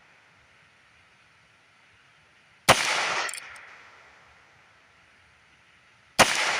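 Two shots from a .22 LR single-action revolver, about three and a half seconds apart, each a sharp crack followed by a short ringing echo.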